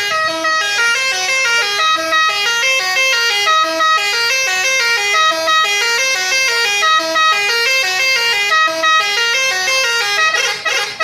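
Bus telolet horn playing a fast multi-note melody, its loud tones stepping up and down several times a second, stopping at the very end.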